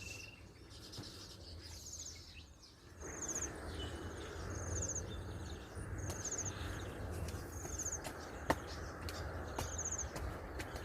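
Short, high trilled chirps repeating about once a second over steady outdoor background noise that grows louder about three seconds in, with one sharp click near the end.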